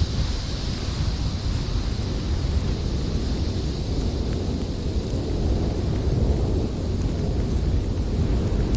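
Blizzard wind blowing steadily as a deep rumble, with a higher hiss that eases over the first few seconds.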